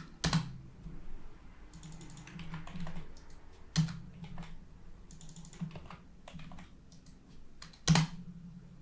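Typing on a computer keyboard: irregular key clicks, with three louder, sharper key strikes spaced about four seconds apart.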